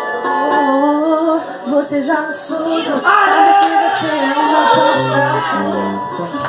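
A woman singing into a microphone over a PA, with low sustained bass notes coming in about four seconds in.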